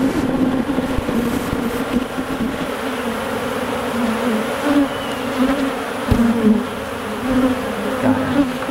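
Honey bees buzzing loudly around an opened hive, many flying close to the microphone, the pitch wavering up and down as individual bees pass. A brief low knock sounds about six seconds in.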